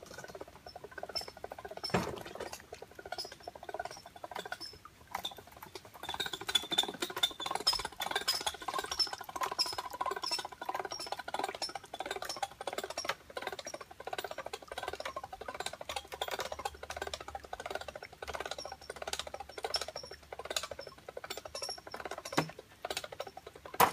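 The hinged outer section of a wooden roller boat ramp being hoisted out of the water on a line, with many quick clicks and a high squeak repeating about twice a second as the hoist and hinge work. The clicking gets busier about six seconds in.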